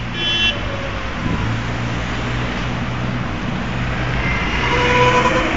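Road traffic passing: a steady engine rumble and tyre noise, growing louder towards the end as a vehicle comes close.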